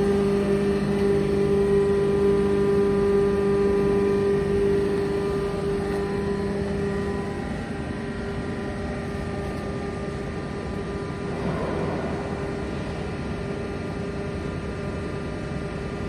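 Steady hum of the double-action scrap baler's hydraulic power pack, its electric motor and pump running without load. The hum is louder at first and settles quieter after about six seconds, with a brief swell of noise near the end.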